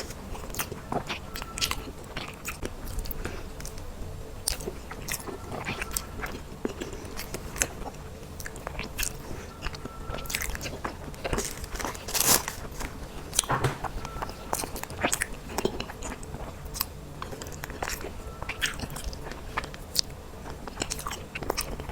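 Close-miked eating sounds of a person biting and chewing cake: many short, irregular wet clicks and small crunches, the loudest about twelve seconds in.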